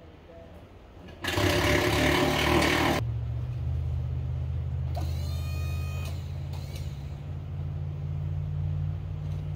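An impact wrench running in a burst of about two seconds, starting about a second in, then a low steady motor drone for the rest of the time, with a short rising squeal about five seconds in.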